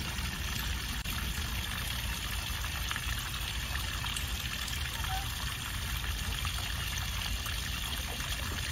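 Water trickling and splashing steadily into a small rocky pond.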